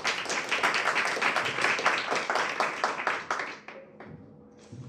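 Audience applauding, the clapping dying away about three and a half seconds in.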